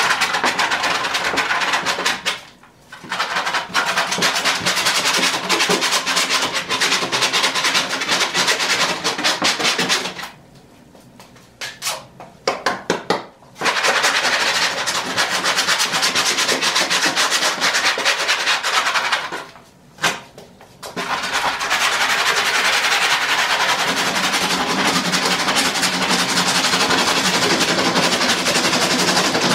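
Rapid, rasping strokes of a small hand brush scrubbing crumbling old foam off a car headliner board. The scrubbing stops briefly three times, the longest pause near the middle.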